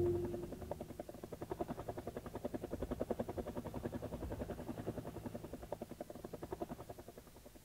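A cat purring close up, a rapid even pulsing that slowly fades away.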